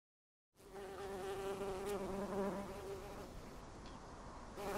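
Bee buzzing in flight, a droning hum that wavers a little in pitch, starting about half a second in after silence.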